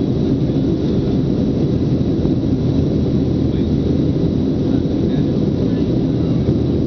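Cabin noise of a Boeing 737-700 in flight, heard from inside the cabin: its CFM56 jet engines and the rushing airflow make a low, even drone that holds steady at one level.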